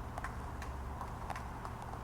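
Irregular light clicks and ticks, a few a second, over a steady low hum.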